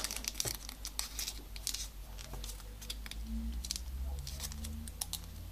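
Faint crinkling and soft clicks of a small folded paper origami module being pinched and pressed flat between the fingers, over a steady low hum.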